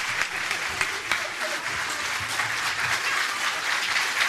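Concert audience applauding steadily, many hands clapping at once.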